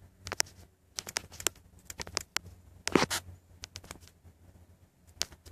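Irregular light clicks, taps and scratches, with one louder knock about three seconds in.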